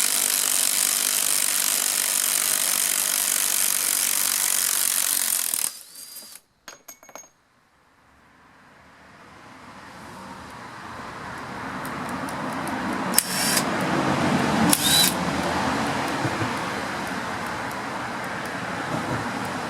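Ryobi cordless impact driver hammering a lag bolt into wood, a loud steady rattle that stops about six seconds in. After a short near silence with a few clicks, a steady noise slowly builds again, broken by two short sharp bursts.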